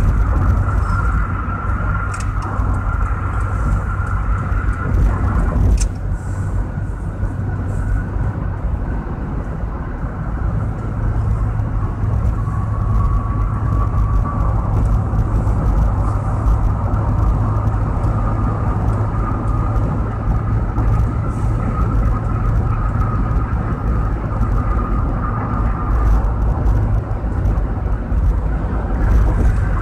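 Steady road and engine noise of a car at freeway speed, heard from inside the cabin, with a faint steady whine running through it. A single short click sounds about six seconds in.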